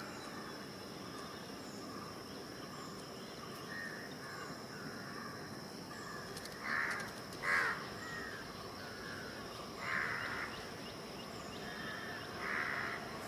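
Birds calling: softer calls from about four seconds in, then four louder short calls, two close together near the middle and two more a few seconds apart, over a steady high whine.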